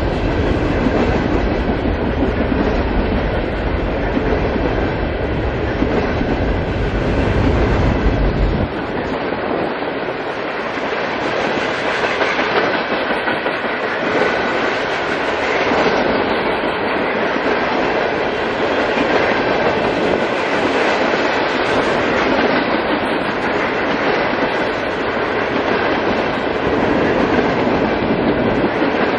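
Freight cars of a long CSX freight train rolling past close by, with steady wheel-on-rail noise. A deep low rumble under it cuts out about nine seconds in.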